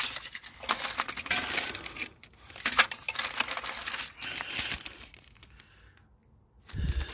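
A plastic bag of metal hardware rustling and clinking as it is handled and lifted out of a porcelain toilet tank, with many small metallic clicks and tinkles and paper crinkling.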